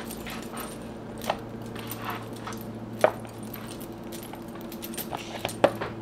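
Scattered light clicks and rustles of hands handling chopped salad greens and a plastic container, over a faint steady hum.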